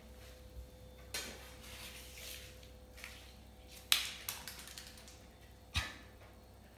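Paper crinkling and rustling as it is crumpled, then a few sharp light taps, the loudest about four seconds in, as a crumpled paper ball is tossed onto the wooden floor.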